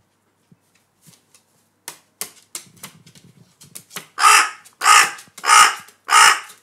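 A crow cawing loudly four times in quick succession, starting about four seconds in, after some faint tapping and rustling. The harsh caws are an angry outburst at having its hidden food taken.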